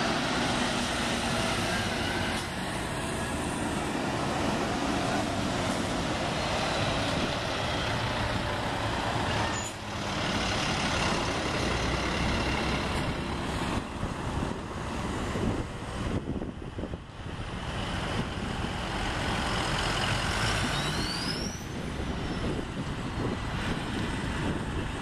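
A procession of fire engines and other emergency vehicles driving past close by: heavy truck engines and tyre noise, with a short rising tone near the end.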